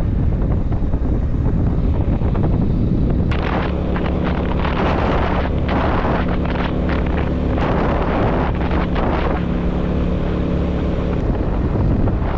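Motor vehicle engine running, with a steady low hum from about three and a half seconds in and repeated bursts of rushing noise over it.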